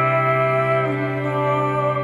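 Background music: slow, sustained chords held over a steady low drone, the held notes shifting to a new chord about a second in.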